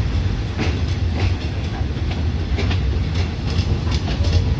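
Passenger train moving slowly, heard from aboard: a steady low rumble with irregular sharp clicks of the wheels over rail joints and points.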